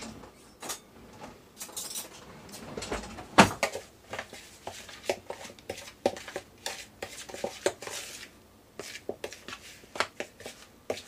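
Metal cutlery clattering as a spoon is taken from a kitchen drawer, one louder clack about three and a half seconds in, then a run of light clicks and scrapes of a spoon stirring egg whites into almond-flour dough in a plastic bowl.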